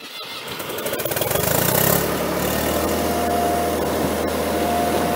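A vehicle engine starts up and settles into a steady low running rumble.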